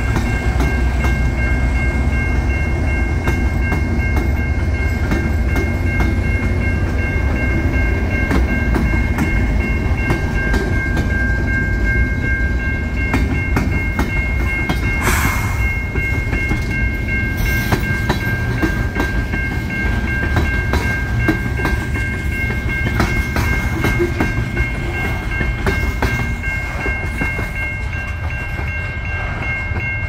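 A line of four GE Evolution Series diesel locomotives and a few freight cars rolling past close by: a heavy engine rumble with wheels clicking over the rails, easing off near the end as the train moves away. A steady ringing tone runs through it all, from the lead locomotive's electronic bell.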